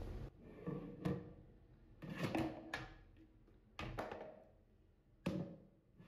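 Plastic washbowl and plastic bath stool being handled: several light knocks and clatters as the bowl is lifted off the stool's seat.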